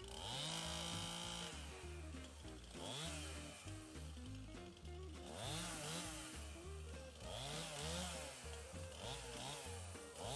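Chainsaw cutting wood, its engine pitch rising and falling over and over as it revs and bogs into the cut, with background music under it.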